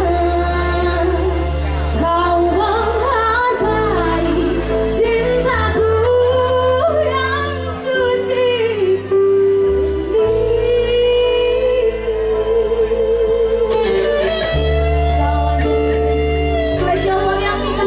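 A woman sings a dangdut song live over a band through the stage loudspeakers, holding long wavering notes above sustained bass notes.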